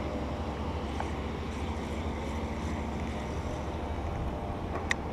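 Wind rumbling on the microphone with a faint steady hum behind it, and one short, sharp high click near the end.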